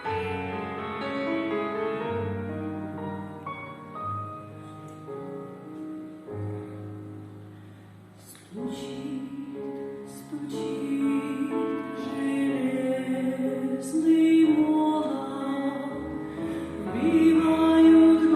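Instrumental introduction to a hymn: keyboard notes like a piano, joined about eight and a half seconds in by a fuller, louder accompaniment.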